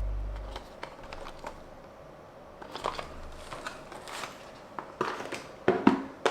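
Hands handling a small toy car and its packaging: scattered clicks, taps and crinkling rustles, louder and more frequent near the end.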